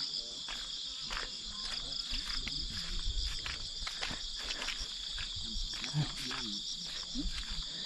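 A steady chorus of insects chirring, a high pulsing buzz, with faint distant voices underneath.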